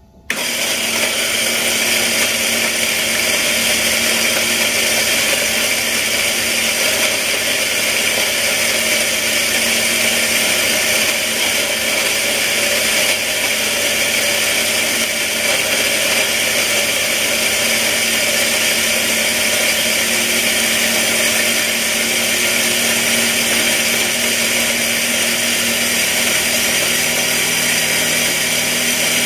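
Electric coffee grinder motor running steadily, grinding coffee beans for espresso; it starts abruptly just after the start.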